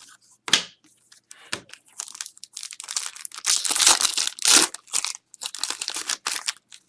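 Packaging crinkling and tearing as trading cards are handled, in irregular rustling bursts, loudest about four seconds in.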